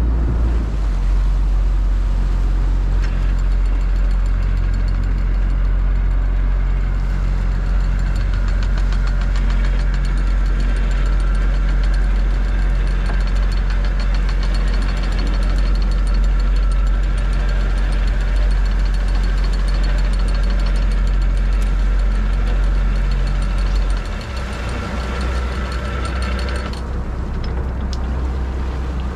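Fishing boat's engine running steadily, a low hum with a higher whine over it; the whine stops about two seconds before the end, and the engine note drops and gets a little quieter about five seconds before the end.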